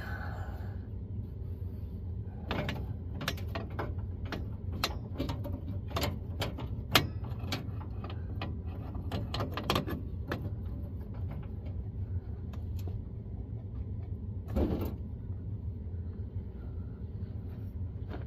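Irregular clicks and knocks of metal work under a truck, bunched in the first half with one sharper knock about seven seconds in and another near the end, over a steady low hum.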